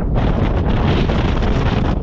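Strong wind buffeting the microphone: a loud, rough rumble with no let-up.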